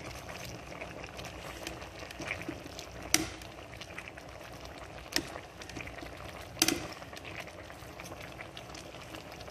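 Red bean and fried tilapia stew simmering in an aluminium pot, a steady bubbling, while a metal ladle scoops and pours the broth. The ladle clinks sharply against the pot three times, about 3, 5 and 6.5 seconds in.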